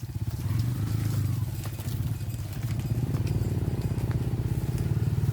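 Small motorcycle engine running steadily at low revs, a fast even putter that grows a little louder from about three seconds in.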